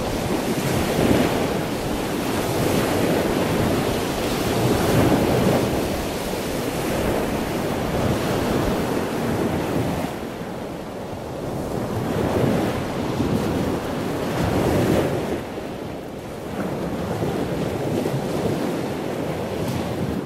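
Sea surf washing onto a beach: a continuous rushing noise that swells and eases every few seconds as waves break, with wind buffeting the microphone.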